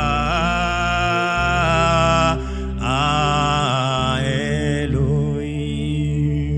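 Worship singing: a solo voice holding long, wavering sung notes over steady held chords, the voice dropping out about five seconds in while the chords ring on.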